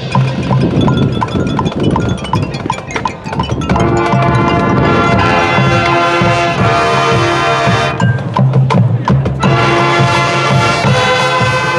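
High school marching band playing: a drumline with a steady ticking beat, then full sustained band chords enter about four seconds in. Near the end there is a short percussion break, and then the chords come back.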